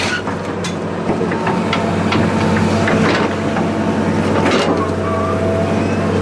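A heavy engine running steadily at a constant pitch, with scattered knocks and clatters on top.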